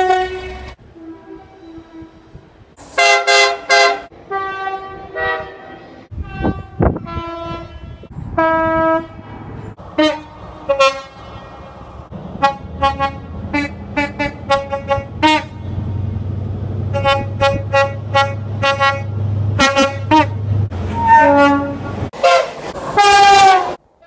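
British railway two-tone train horns, sounded by a succession of different locomotives and multiple units in short blasts and pairs of notes. A low rumble runs under the horns in the middle, and the last horn near the end falls in pitch.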